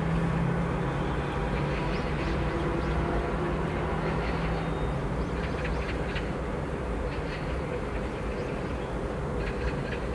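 Steady low rumble of distant road traffic, with a deeper engine hum that fades out about halfway through and a few faint high clicks later on.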